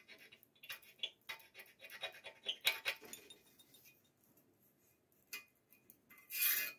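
Steel scriber scratching marking lines into a steel plate, with small clinks as the steel rule is handled and moved on the metal. Quiet for a while after about three seconds, then a brief louder hiss near the end.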